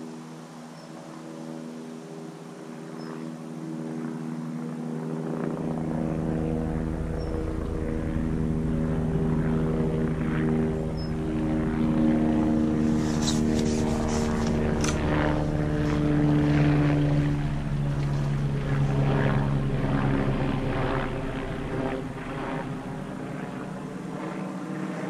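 A propeller aircraft flying over: a steady droning engine hum that builds over the first several seconds, is loudest around the middle and fades toward the end. A few sharp clicks come just past the middle.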